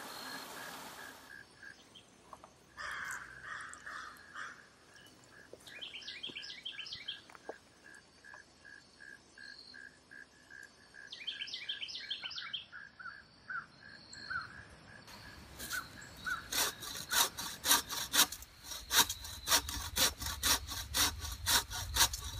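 A hand saw cutting through a dead branch in steady back-and-forth strokes, about two a second, starting about fifteen seconds in. Before that, water rushing over rocks briefly, then a quiet stretch with a repeated high note and two short bursts of bird chirping.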